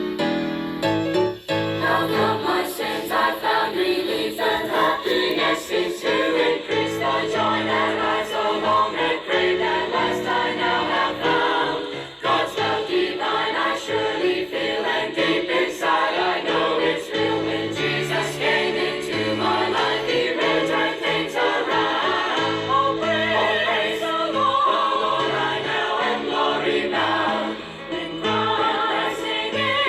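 Choir singing gospel music with instrumental accompaniment and a low bass line under the voices.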